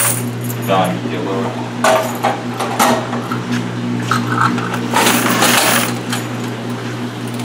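Quarters jingling and sliding in a metal washer coin box as it is pulled out of a coin-operated washing machine, with a dense rattle about five seconds in and a few shorter clinks before it, over a steady low machine hum.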